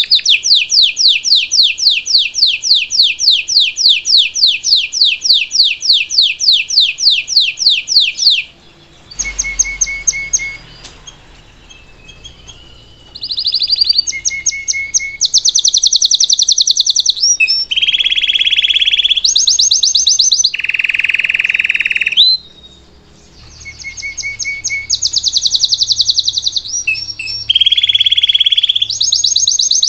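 Domestic canary singing: one long, fast trill of rapidly repeated high notes for about the first eight seconds, then after a brief pause a run of shorter rolling trills at changing pitches, some lower and fuller, with short gaps between phrases.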